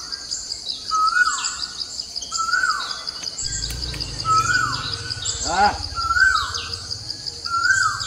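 A bird repeating the same short call about every second and a half, each a quick rise then a falling slur, over a steady high insect drone. A little past the middle a brief cry rises and falls in pitch, and a low rumble comes in from about halfway.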